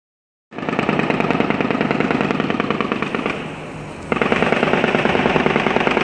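Rapid, sustained automatic-style gunfire in two long strings of shots: the first starts about half a second in and stops after about three seconds, and after a brief lull a second string starts about four seconds in.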